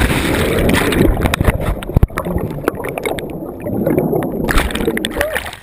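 Underwater churning and bubbling of a cliff jumper's plunge into a pool, heard with the microphone submerged: a dense, muffled rush of water and air bubbles with scattered knocks. The sound brightens again near the end as the surface nears.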